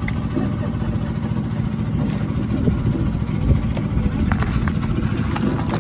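An engine idling steadily with an even low throb, with a few short knocks and slaps as live catfish are grabbed and shifted in the pile.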